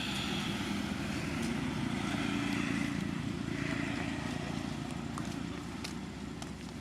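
A motor vehicle's engine passing by, growing louder to a peak near the middle and then fading.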